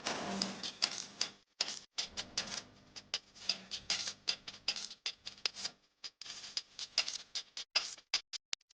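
Hot oil in a pan crackling and spitting, dense at first, then thinning to sparse single pops near the end.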